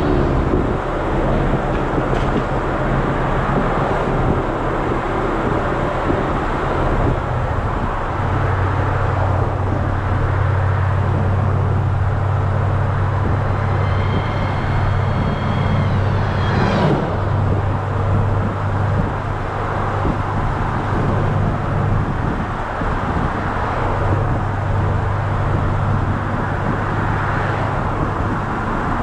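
Chevrolet Nova's engine and exhaust droning steadily as the car cruises, with road and wind noise. The deep drone grows louder about a quarter of the way in, and changes briefly a little past halfway.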